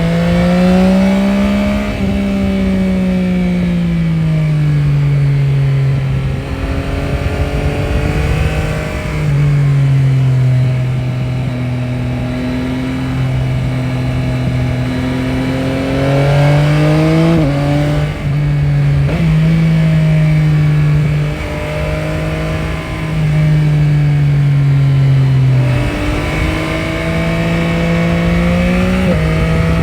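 Yamaha Tracer 9 GT's CP3 inline-three engine running under way, its pitch climbing and falling repeatedly with the throttle, with a few sudden steps in pitch in the middle and near the end. Wind or road noise runs underneath.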